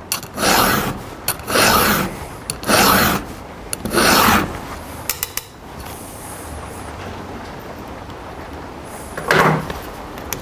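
Hand file rasping across a chainsaw chain's cutter tooth in four strokes about a second apart, then one more stroke near the end. The file is grabbing on a tooth, which the filer puts down to it never having been sharpened or to its top being turned down from hitting something.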